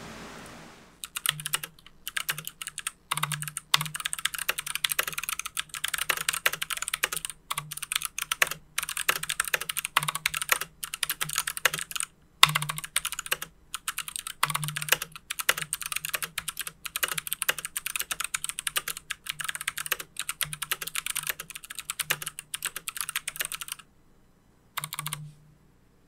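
Fast typing on a YC96 mechanical keyboard fitted with Kailh BOX Jade switches: a dense stream of sharp, clicky keystrokes, with the keyboard sitting on a bare wooden desk with no deskmat. The typing breaks off briefly about halfway and ends with a short last burst after a gap near the end.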